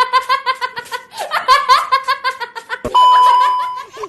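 Laughter sound effect: a voice laughing in rapid, repeated bursts, with a short pause about a second in. About three seconds in, a steady beep cuts in and lasts about a second.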